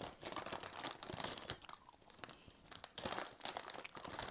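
Candy packaging crinkling and rustling as hands rummage through a bag of gummy candies, in two spells of dense crackling with a short lull around the middle.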